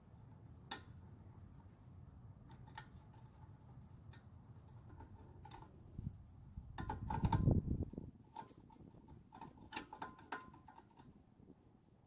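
Faint small metallic clicks and taps as a small engine's carburetor float bowl and bowl nut are fitted back on by hand, with a louder spell of low handling rustle and clustered clicks a little past the middle.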